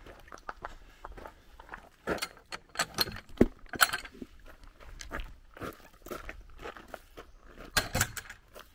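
Footsteps crunching on a gravel path, with a cluster of sharp clicks and knocks about two to four seconds in as a white picket gate and its metal latch are opened and closed, and another knock near the end.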